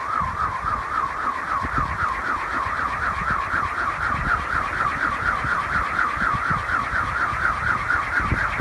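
Kolecer, a Sundanese two-bladed wind propeller on a bamboo pole, spinning in the wind and giving a loud humming whir that wavers up and down about four times a second with each pass of the blades. Its pitch creeps a little higher toward the end.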